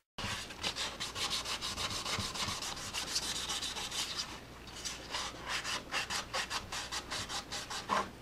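Sandpaper wet-sanding a primed motorcycle fairing panel by hand with 600 grit: quick back-and-forth rubbing strokes, several a second, easing off briefly about halfway through.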